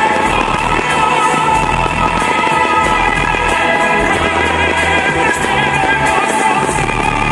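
Show music with a singing voice: long held, wavering sung notes over a sustained bass.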